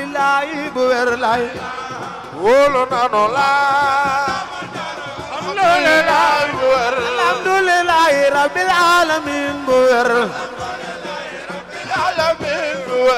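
A man's voice chanting a Sufi religious song (zikr) in long, ornamented phrases, the pitch wavering and sliding from note to note.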